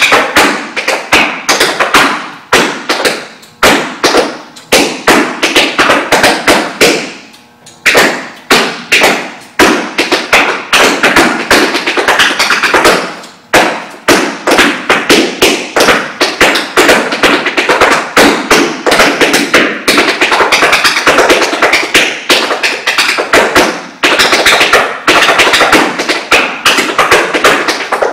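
Tap shoes striking a hardwood floor in fast, dense runs of taps and heavier stamps, with short breaks about seven seconds in and again about thirteen seconds in.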